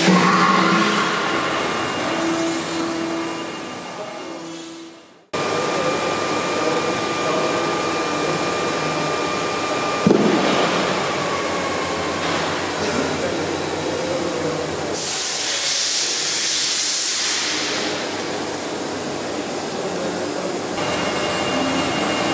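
Automatic hole-drilling machine for plastic pipe running: a motor whir with faint steady tones that fades away over the first five seconds. After an abrupt cut, a steady machine noise, with one sharp click about ten seconds in.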